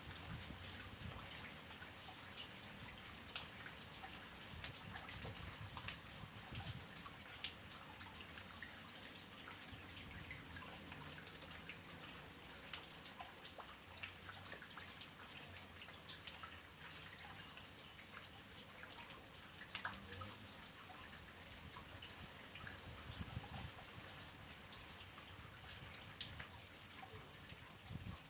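Soft, light rain: a steady faint hiss of water with many small drops dripping and ticking at random.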